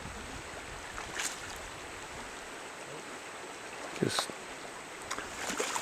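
Creek water running over a shallow riffle, with a couple of brief splashes about one second and about four seconds in as a hooked rainbow trout is brought to a landing net.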